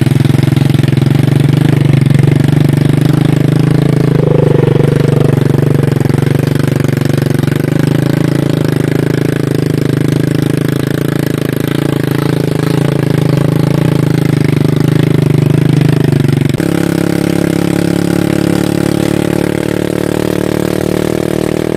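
Motorcycle engine running steadily under way, heard from the seat behind the rider. About three-quarters of the way through, the engine note drops to a lower pitch.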